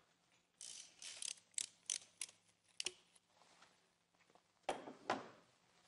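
Ratchet wrench clicking in a quick, uneven run as a spark plug is loosened with a long socket extension, followed by two louder knocks near the end.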